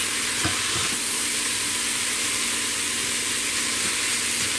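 Chopped cabbage, bell pepper and onion sizzling dry in an Instant Pot's stainless steel inner pot with a steady hiss, and a few light scrapes of a silicone spatula stirring near the start.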